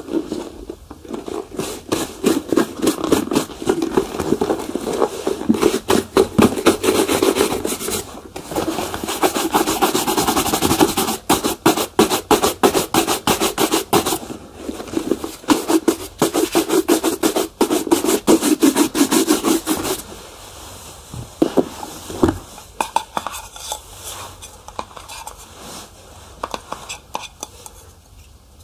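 Shoe polishing on leather: rapid back-and-forth rubbing strokes. They go quieter and sparser about two-thirds of the way through.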